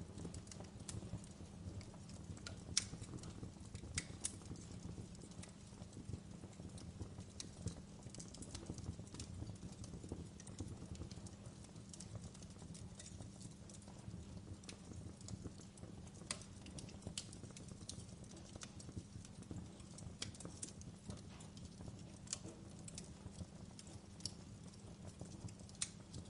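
Wood fire in a fireplace crackling: irregular sharp pops and snaps over a low, steady rumble of the burning fire.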